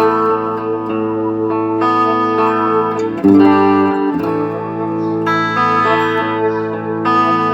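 Electric guitar played through an Electro-Harmonix Holy Grail Nano reverb pedal: sustained chords ringing on, with a louder new chord struck about three seconds in and another change a couple of seconds later. This is a sound test of the pedal after repair, passing signal and adding reverb.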